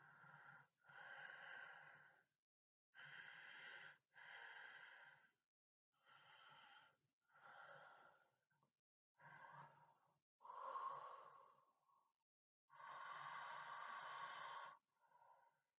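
A person's faint, noisy breathing with a buzzy edge: about six breaths in and out, each lasting about a second, with short silent gaps between them.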